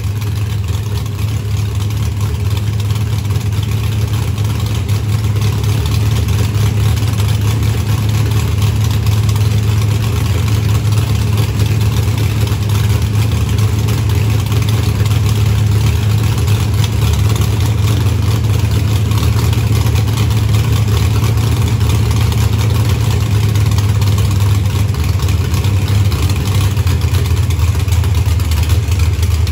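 Pulling truck's freshly repaired engine running at a steady idle, with no knocking or banging, which the owner takes as a sign the engine is fine.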